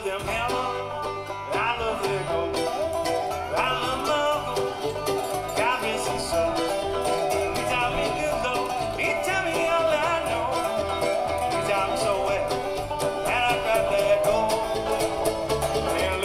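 Small bluegrass band playing live: banjo and acoustic guitar with a mandolin, in a mostly instrumental passage with a rising slide about every two seconds.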